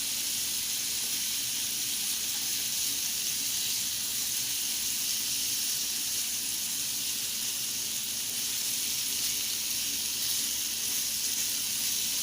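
Seasoned chicken sizzling steadily as it sears in a hot pan, a continuous high hiss of frying with lemon juice on it.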